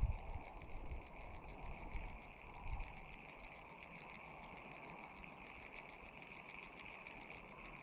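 Faint outdoor ambience: low gusts of wind buffeting the microphone during the first three seconds, over a steady, faint high-pitched hiss.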